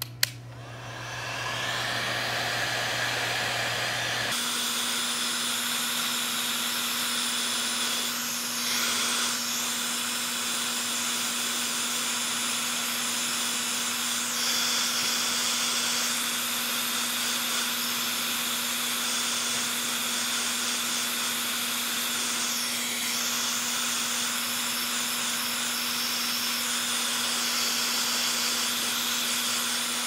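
Electric heat gun switched on with a click, building up over the first few seconds and then blowing steadily with a steady hum, shrinking heat-shrink tubing over a wire joint.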